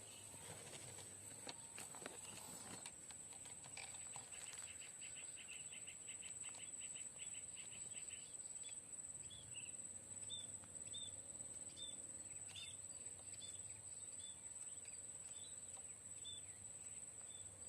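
Faint small-bird calls: a quick run of short high notes, then single high chirps repeated about twice a second, over a steady high-pitched insect whine.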